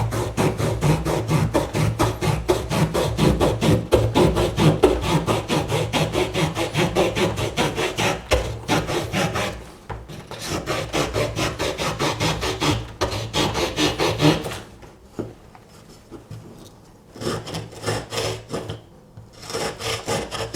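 Victorinox Huntsman Swiss Army knife's small wood saw sawing through a tree branch in quick back-and-forth strokes, cutting easily. The sawing runs on for most of the time, stops, then comes back in two short runs of strokes near the end.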